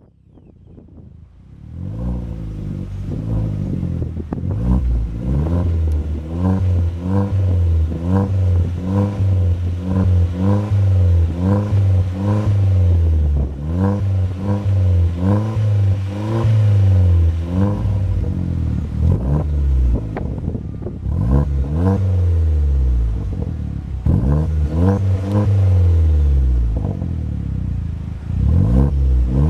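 Vauxhall Corsa VXR Nurburgring's turbocharged four-cylinder engine blipped again and again through a 2.5-inch non-resonated stainless cat-back sports exhaust with sports cat. The pitch rises and falls quickly with each rev, with a steadier, lower stretch about two-thirds of the way through.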